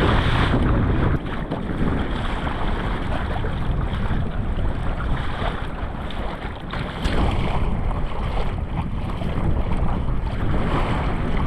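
Wind buffeting the microphone over choppy seawater slapping against a kayak hull, a steady rushing noise in rough sea conditions. The low wind rumble eases about a second in.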